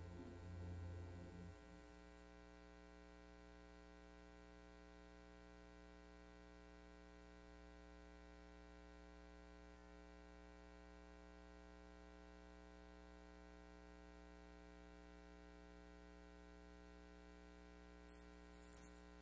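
Music with a wavering sung note dies away about a second and a half in. Then near silence with a steady electrical hum and buzz from the sound system.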